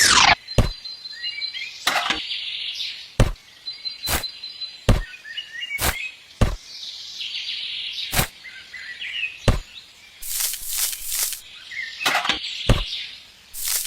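A series of sharp knocks or taps, irregular and about one a second, with a quicker run of several knocks about ten seconds in. Birds chirp in the background.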